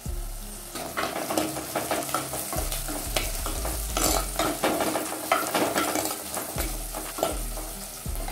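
Steel ladle stirring and scraping through onions, garlic and red chillies sizzling in oil in an earthenware pot (mann chatti), with frequent short scrapes and clicks of the ladle against the pot. The sizzle fades near the end.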